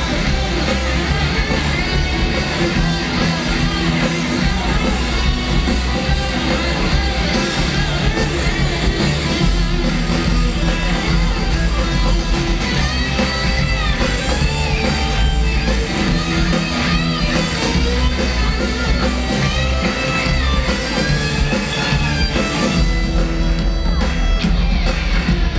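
Punk rock band playing live: distorted electric guitars, bass and drums, loud and without a break.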